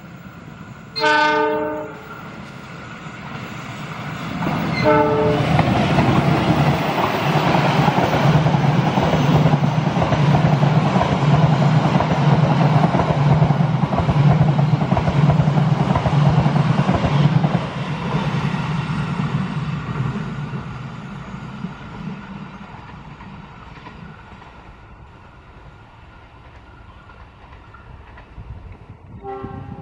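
Diesel locomotive horn blowing a blast, then a shorter blast a few seconds later, before the train passes close by: a loud, steady engine drone with the rumble and clatter of wheels on the rails, fading away over several seconds. A short horn blast comes again near the end.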